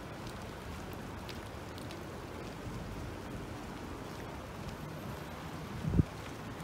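Steady outdoor background noise, an even hiss with no clear single source, broken by one short low thump about six seconds in.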